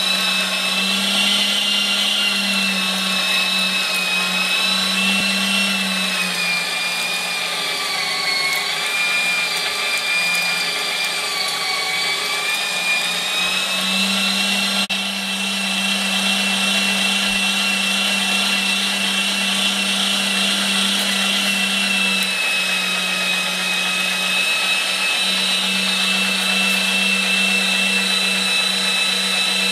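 LEM electric meat grinder running and grinding raw meat, its motor giving a steady hum with a high whine. The whine sags in pitch for several seconds around the middle, then comes back up.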